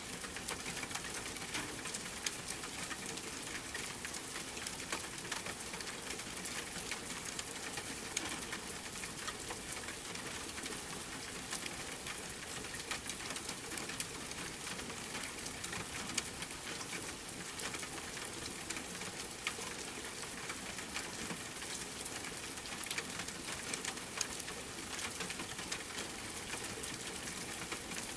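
Steady rain falling, mixed with the frequent small crackles and pops of a wood fire.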